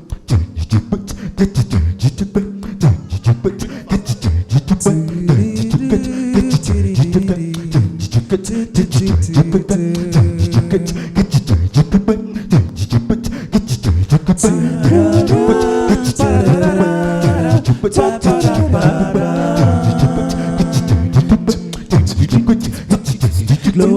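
A cappella group starting a song without words: a beatboxed vocal percussion rhythm under low held sung notes. About five seconds in more voices join in harmony, growing fuller in the second half.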